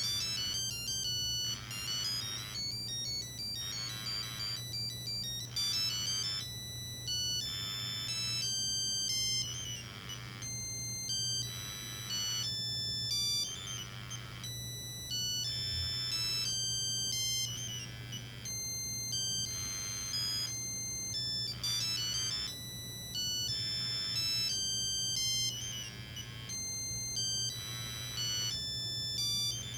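Nokia 3395 mobile phone playing a monophonic ringtone: a quick melody of high beeping notes in short phrases with brief gaps, over a steady low hum.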